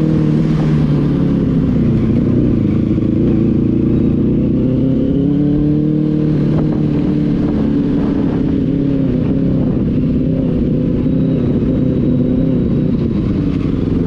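Benelli 600i motorcycle's inline-four engine running while ridden, its note rising and falling slowly with the revs.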